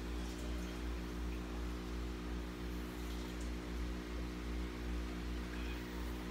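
Electric stand fan running: a steady hum over an even hiss.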